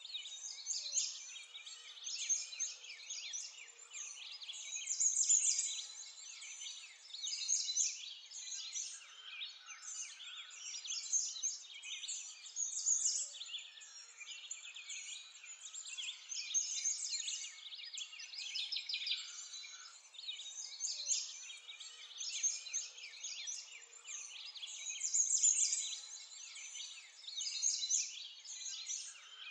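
Dense chorus of many songbirds chirping and twittering, swelling and falling in loudness every second or two.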